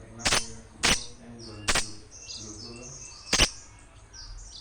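Small birds chirping in a busy, high twittering: a noisy small-bird lure sound meant to draw birds in. Four loud, sharp clicks cut across it, irregularly spaced.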